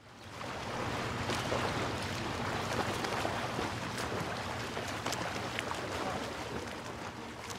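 Wind and water rushing past a sailing yacht under way, an even rushing noise that fades in at the start and holds steady.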